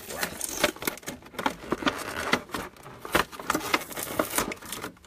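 Thin clear plastic clamshell packaging crinkling and crackling in a dense, irregular run of clicks as it is pulled open by hand against the sellotape holding it shut.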